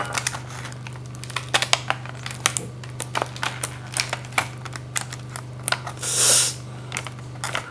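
Sharp plastic clicks and taps of a blister-pack tray being handled while the sticky tape sealing it is cut, with one short tearing sound about six seconds in. A steady low hum runs underneath.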